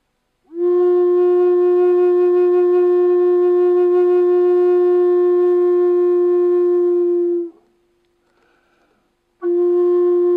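Redwood flute playing one long, steady held note for about seven seconds. After a short pause the same note starts again near the end.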